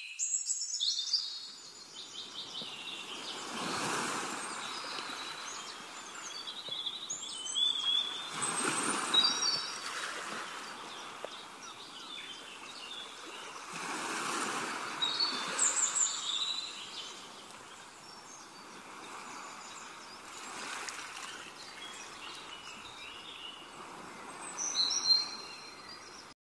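Small birds chirping and twittering over a hiss that swells and fades every few seconds.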